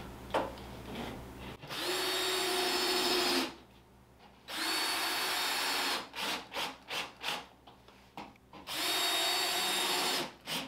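Cordless drill fitted with a regular Phillips bit, driving screws through sheetrock. The motor whines steadily in three long runs, with a quick string of short trigger bursts between the second and the third.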